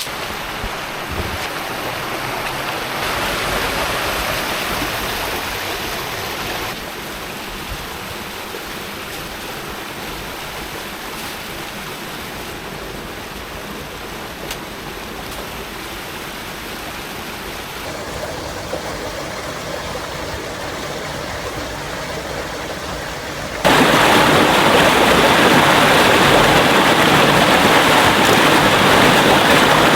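Creek water rushing over rocks and small waterfalls, a steady hiss that changes level in abrupt steps and jumps much louder near the end as a waterfall comes close.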